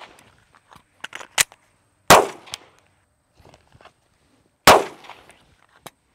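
Two handgun shots about two and a half seconds apart, each a sharp crack with a short ringing tail. Between them are a few light clicks and clacks of the magazine being dropped and a fresh one seated during a speed reload.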